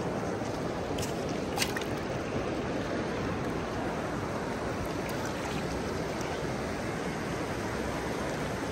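Fast river water rushing and swirling past a stony bank, a steady, even rush, with a couple of brief clicks between one and two seconds in.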